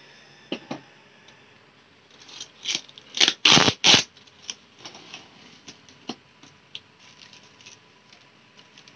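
Clear packing tape along the seam of a cardboard laptop box being slit open: a couple of sharp clicks, then a run of loud rasping strokes about three seconds in, followed by light scattered taps and scrapes on the cardboard.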